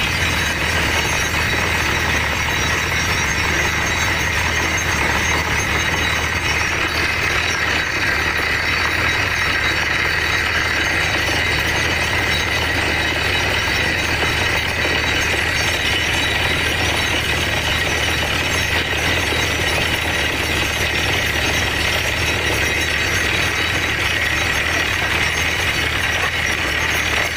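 Borewell drilling rig's engine running steadily and loudly, with a low hum under a constant mechanical din.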